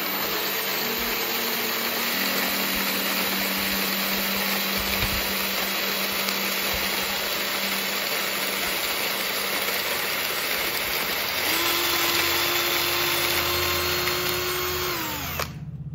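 Ozito cordless drill spinning a Timemore C3 hand coffee grinder to grind coffee beans: a steady motor whine with grinding noise. Near the end the pitch falls as the drill winds down and stops.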